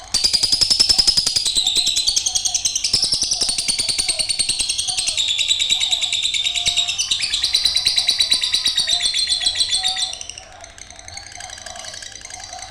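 Female lovebird singing a long, rapid, high chattering trill without a break, which stops about ten seconds in, leaving a much quieter sound.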